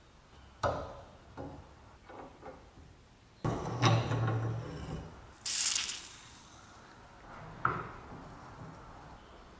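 Handling sounds of an old bread cutter, wood and metal: a few separate knocks, then a longer scraping rub about three and a half seconds in, a short hissing scrape right after it, and one more knock near the end.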